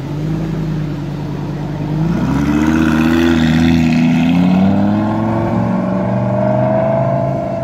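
Lamborghini Gallardo's V10 engine accelerating away. The revs climb sharply about two seconds in, then rise steadily again toward the end.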